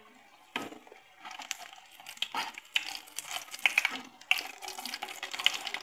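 Breadcrumbed chicken pieces deep-frying in hot oil in a wok: a sizzle with many irregular pops and crackles, and clicks and scrapes of a metal slotted skimmer pressing the chicken against the pan, with a sharp knock about half a second in.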